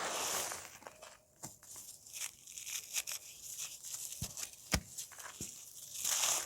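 Dry, crunchy cake being crumbled: a crackling crunch, then a quieter stretch of scattered crackles and sharp snaps, with the loudest snap a little past the middle. The crunching picks up again near the end.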